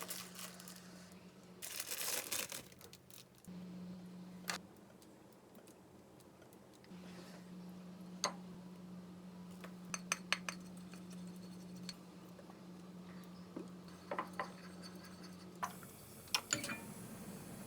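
Kitchen prep noises: scattered clinks and taps of dishes and utensils, with a brief rustle about two seconds in. Under them runs a low steady hum that drops out a few times.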